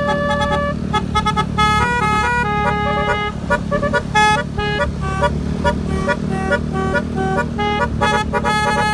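Basuri telolet musical horn with snail-shaped (keong) trumpets playing a fast melody of short tooting notes that change pitch every fraction of a second. A steady low drone runs underneath.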